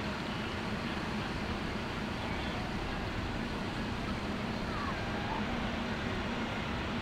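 Engine running steadily: a constant low drone with no change in level.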